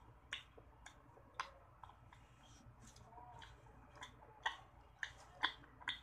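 Close-miked wet mouth clicks and lip smacks into a handheld microphone held against the lips, about ten irregular sharp clicks, the loudest near the end.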